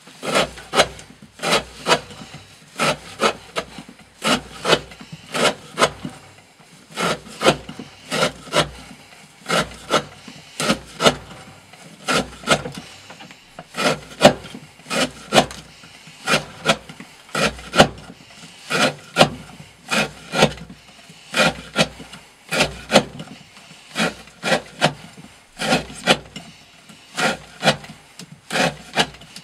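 A custom S35VN-steel hunting knife shaving curls down an upright wooden stick, one short dry scraping cut per stroke, repeated steadily at about one to two strokes a second.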